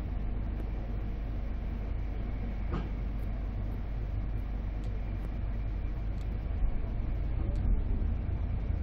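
Steady rumble of a Polish type 156A first-class passenger coach rolling along the track, heard from inside the coach, with a few faint clicks.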